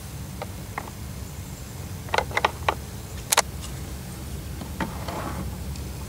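Small sharp clicks and knocks of hands handling battery cables and terminal hardware in a plastic battery box. There is a quick cluster of four about two seconds in and a louder double click just after three seconds, over a steady low rumble.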